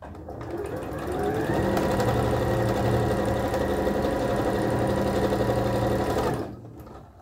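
Electric sewing machine stitching fabric strips together: the motor speeds up over the first second or so, runs at a steady speed, then stops abruptly about six and a half seconds in.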